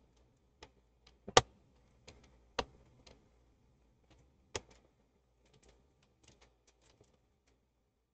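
Scattered small clicks and taps of a screwdriver working screws into a laptop's plastic bottom case. They come irregularly, with a sharper click about a second and a half in and a few more after it, then grow sparse.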